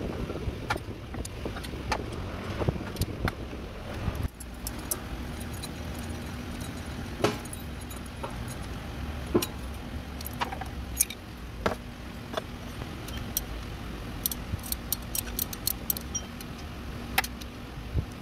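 Irregular metallic clinks and clicks of a socket and ratchet wrench against the serpentine belt tensioner and idler pulley bolts, over a steady low background rumble.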